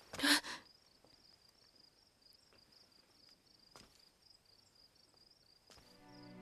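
Crickets chirping in a steady, pulsed high trill. A brief loud swish of noise comes at the very start, and two faint clicks follow later.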